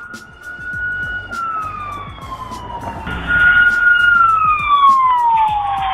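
Police car siren wailing in long, slow glides that fall in pitch, growing much louder about three seconds in, with a second siren tone above it.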